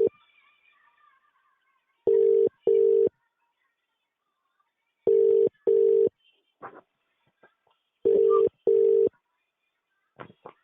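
Indian telephone ringback tone: a low buzzing double ring, two short tones close together, repeating about every three seconds as a call rings unanswered.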